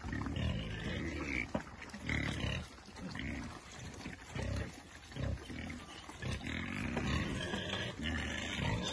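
Pigs and piglets grunting over their feed: short low grunts one after another at uneven intervals, with some higher rasping sounds mixed in.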